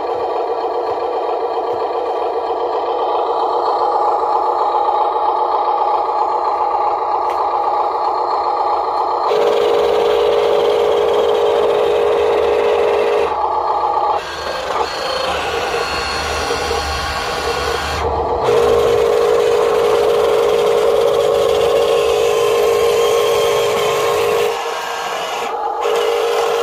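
Huina radio-controlled dump truck's small electric motor and plastic gearbox whining steadily as it drives through sand. The pitch and level jump abruptly several times.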